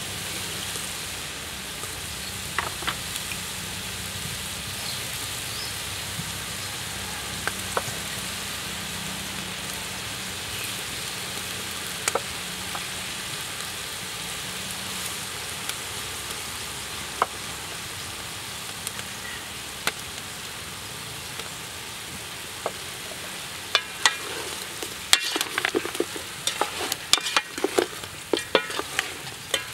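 Chicken pieces sizzling steadily as they fry in a large metal pot, with scattered light ticks and pops. Near the end, a wooden spoon stirs the meat, with a run of sharp knocks and scrapes against the pot.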